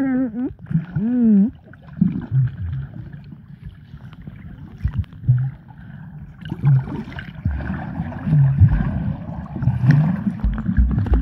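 Muffled underwater sound picked up by a camera held beneath shallow sea water: low rumbling, sloshing and thumps of water stirred by wading legs. About a second in, a short wavering muffled voice carries through the water.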